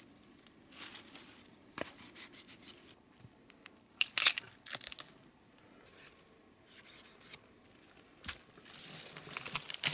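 Knife cutting and hide tearing on the legs of a freshly gutted red deer hind, with scattered crackles and rustling of ferns and leaf litter. A louder crunch comes about four seconds in.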